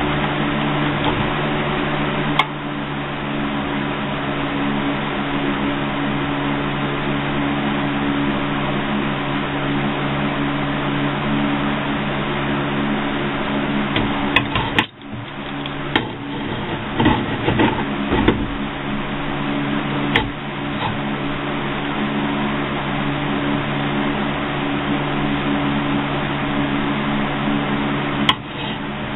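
Hot steel knife blades quenched in a bucket of motor oil: a steady sizzling hiss over a low hum. A few metal clanks from tongs come about halfway through and near the end.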